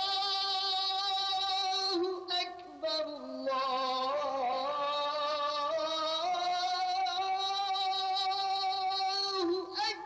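A single voice chanting the Islamic call to prayer (azan) in long, drawn-out held notes with a wavering pitch, pausing briefly a couple of times between phrases.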